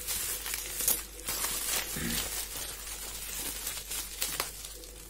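Packaging crinkling and tearing as a small wrapped product is pulled open by hand: a dense run of crackles and rustles that thins out and grows quieter near the end.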